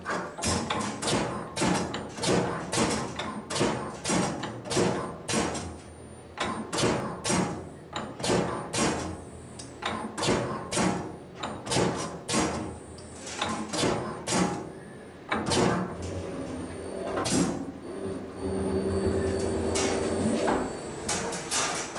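Factory machinery making sharp knocks or clacks about twice a second, giving way to a steadier running hum near the end.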